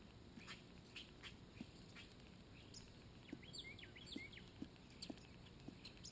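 Faint bird chirps, a quick cluster of short high falling notes about halfway through, over scattered soft ticks and taps of a bird pecking at the mealworm dish.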